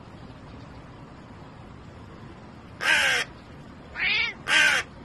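A crow cawing twice, two loud harsh caws about three seconds in and again near the end, with a cat giving a short meow between them.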